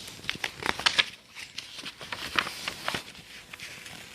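Scattered light clicks and rustling, many short sharp ticks in no steady rhythm.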